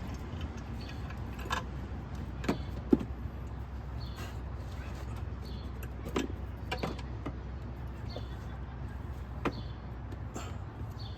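Scattered metallic clicks and knocks of hand tools and battery hardware during a car battery installation, the sharpest about three seconds in, over a steady low hum.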